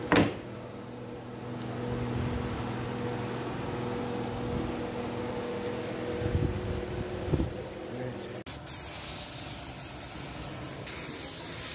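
Steady hum of a small power tool's motor running. About eight seconds in it changes abruptly to a steady, high hiss.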